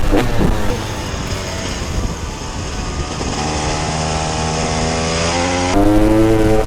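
Husaberg TE 300 two-stroke motard engine: a quick swoop in revs at the start, then a quieter stretch as the engine note climbs slowly under acceleration. It turns louder and higher near the end.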